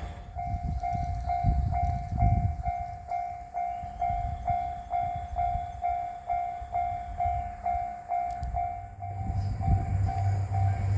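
Japanese railway level-crossing warning bell ringing its repeated 'kan-kan' ding, about two and a half strikes a second. From about nine seconds in, a lower pulsing tone joins in the same rhythm, over an uneven low rumble.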